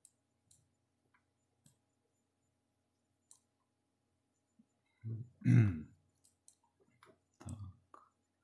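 Faint computer mouse clicks, a handful spread over the first few seconds. About five seconds in comes a short, louder vocal sound without words, the loudest thing here, and shorter ones follow near the end.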